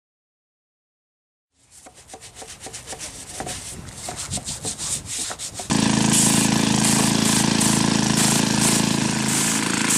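A brush scrubbing the stone in quick rhythmic strokes, about four a second and growing louder. Just before six seconds in, this cuts to a pressure washer running and spraying: a steady engine hum under loud spray hiss.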